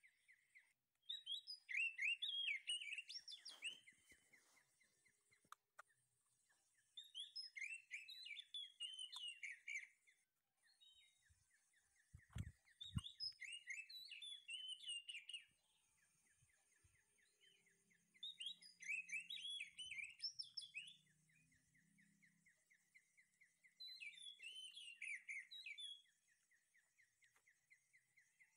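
A songbird singing a phrase of quick, sliding chirps every five or six seconds, each lasting two to three seconds, over a faint steady high hiss and fast ticking. A short low thump comes a little before halfway.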